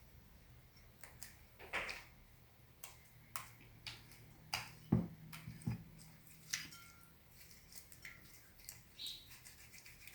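Stiff homemade slime being squeezed and pressed by hand, giving scattered soft clicks and pops at irregular intervals; the slime is stiff from too much activator.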